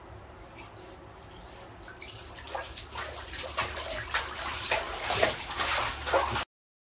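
Bathwater splashing and sloshing in a tub as a Shiba Inu dog paddles, starting about two seconds in and growing louder in irregular splashes, then cutting off abruptly near the end.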